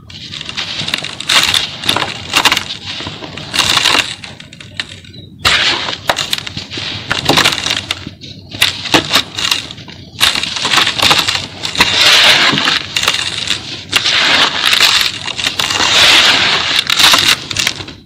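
Moulded chunks of dry sand and cement crushed and crumbled between bare hands over a plastic basin. Gritty crunching and crackling comes in a run of bursts with brief pauses, and the powder sifts and pours down.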